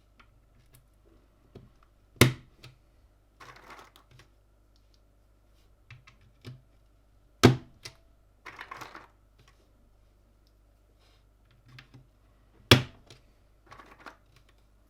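Parts being pressed by hand into a Gamakay LK67 mechanical keyboard during assembly. There are three sharp snaps about five seconds apart, each followed a second later by a short rustle, with faint small clicks in between.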